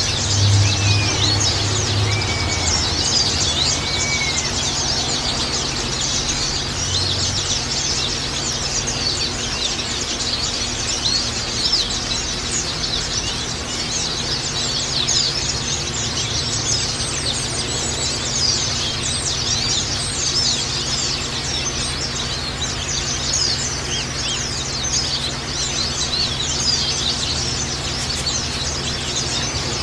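A flock of white-eyes (Zosterops, pleci) chirping and singing in a dense, unbroken chorus of rapid high notes. A few lower slurred whistles come in the first few seconds.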